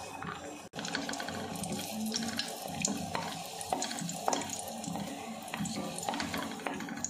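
Raisins sizzling and crackling in hot ghee in a pan while being stirred with a wooden spatula. The sound drops out for an instant just under a second in.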